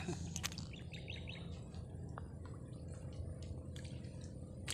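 A bird chirping a few times near the start, over a low steady rumble. A few faint clicks follow, then a sharper click near the end.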